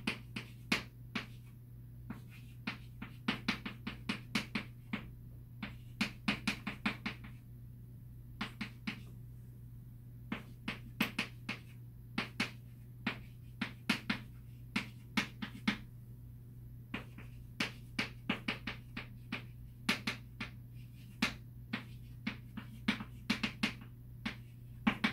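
Chalk writing on a chalkboard: irregular clusters of sharp taps and clicks as the chalk strikes and leaves the board with each letter, over a steady low hum.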